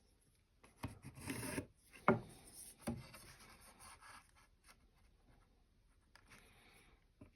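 Pencil scratching on wood while marking out measurements, with a couple of sharp knocks of a tool or ruler set on the workpiece about two and three seconds in.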